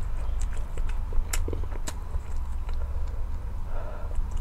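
Close-miked chewing of food, with scattered small wet clicks and smacks over a steady low hum.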